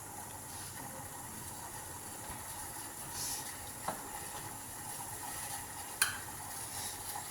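Steady sizzling hiss of a pan of water with grated ginger heating on the stove, not yet at a full boil, with a faint steady tone underneath. Two small clicks, about four and six seconds in.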